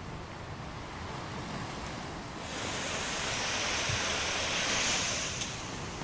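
Small sea waves washing up onto a sandy beach. A wave's hiss swells about two and a half seconds in and fades off near the end.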